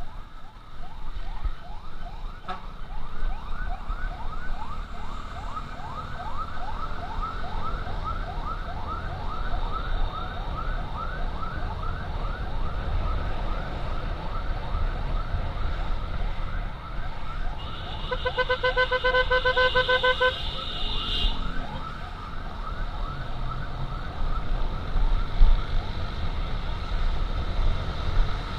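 Ambulance siren in a fast yelp, rising sweeps repeated a few times a second, heard over the rumble and wind of a moving motorcycle. A buzzing horn blares over it for about three seconds before the siren stops, leaving the motorcycle's road noise.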